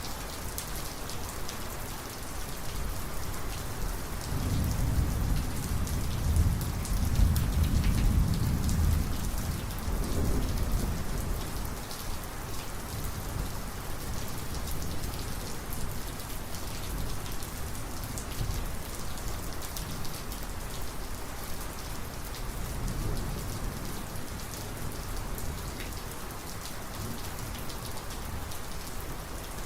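Heavy rain falling steadily, with a deep rolling thunder rumble that builds about four seconds in, peaks, and dies away after about ten seconds; a fainter rumble comes again later.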